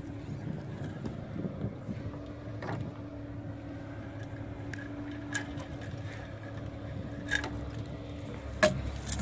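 A few sharp metallic clicks and clinks of a sailboat's mainsheet shackle and block being handled and unclipped, over a steady low hum.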